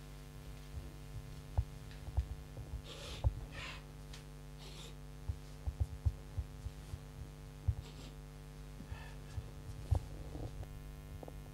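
Steady electrical hum with irregular soft low thumps and a few brief rustling swishes about three to five seconds in.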